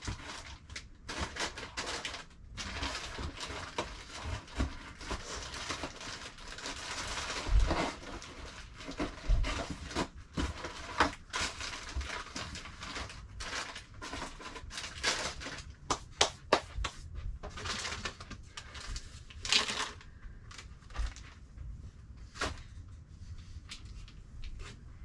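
Rustling and crinkling of packets and other items being rummaged through in a cardboard box, with many small irregular knocks and clicks as things are moved.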